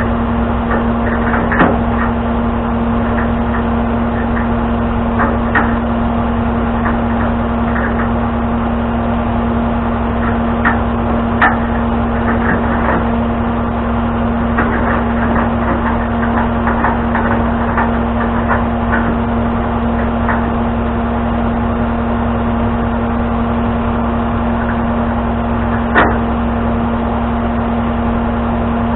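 Tow truck's engine running steadily with a constant hum, with scattered metallic clanks and knocks over it. The sharpest come shortly after the start, about eleven seconds in and near the end.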